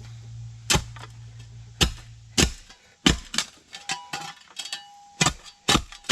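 A metal spade striking rocky soil and stones while digging a post hole: sharp, irregular clinks and knocks that come closer together toward the end. A low steady hum runs underneath and stops about two and a half seconds in.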